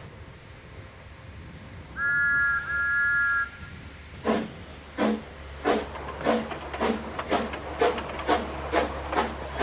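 Steam locomotive sound effects: a steam whistle blows two blasts, then the engine starts away, its exhaust chuffs beginning slowly and quickening steadily.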